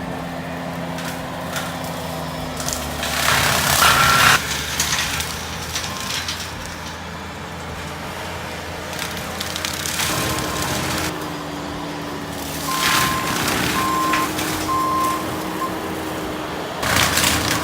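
Skid steer engine running steadily under load, with its hydro-axe mulching head cutting brush in several louder grinding surges. The machine's back-up alarm beeps several times in the second half.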